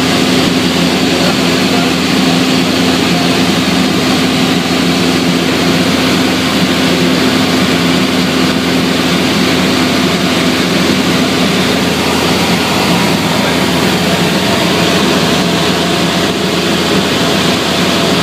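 Cabin noise of a light high-wing propeller aircraft in cruise flight: the engine and propeller drone steadily, and a low hum fades about two-thirds of the way through.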